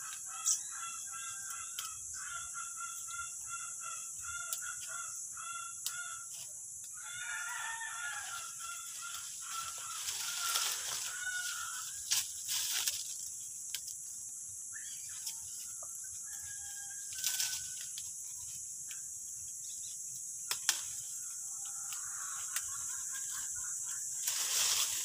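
A rapid run of short, repeated bird calls for the first several seconds, then a few scattered calls, over a steady high insect buzz. Leaves and branches crackle and rustle as guavas are pulled from the bush.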